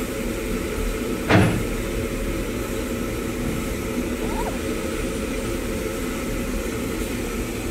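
Steam locomotive standing on a turntable and venting steam, over a steady low rumble. One short, loud burst comes about a second and a half in.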